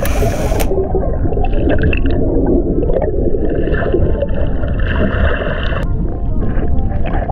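Water heard from below the surface: a brief splash right at the start as the swimmer goes under, then a steady, muffled low rush with gurgling bubbles as he swims.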